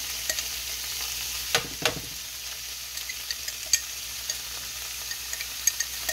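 Onions and cold meat sauce sizzling steadily in a nonstick frying pan, with a few sharp clinks and scrapes of a spoon scooping the sauce from a glass jar into the pan.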